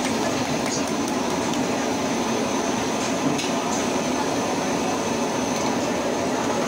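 Potato fries deep-frying in a large pan of hot oil: a steady sizzling hiss, with a few faint clicks.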